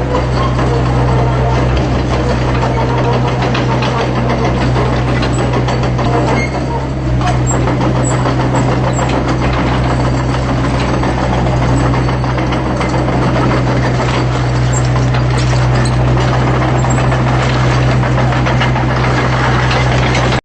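Diesel engine of a John Deere 80 midi hydraulic excavator running steadily, with a short dip in level about seven seconds in.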